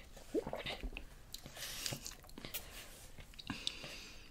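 Faint mouth sounds of sipping a soft drink through a straw, with small clicks and chewing.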